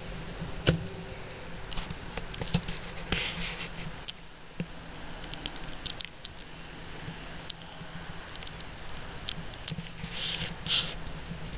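Scattered clicks, scuffs and rustles from a handheld camera being carried and handled, over a low steady hum that fades in the middle and comes back.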